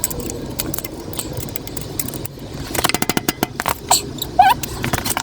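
Metallic clicks and rattles of hand tools and drive chain as a motorcycle's rear chain is worked on. A quick run of even clicks comes a little under three seconds in, and a short rising squeak about four seconds in.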